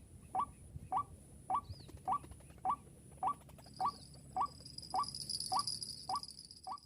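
White-breasted waterhen calls: a short, rising note repeated evenly about twice a second, with a steady high insect buzz that grows louder about two-thirds of the way through.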